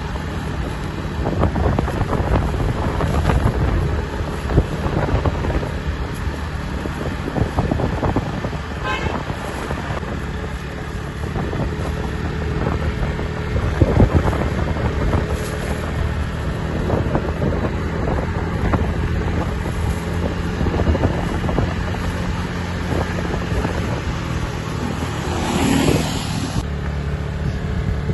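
A motor vehicle's engine running steadily, with wind buffeting the microphone; a brief louder rush of noise comes about twenty-six seconds in.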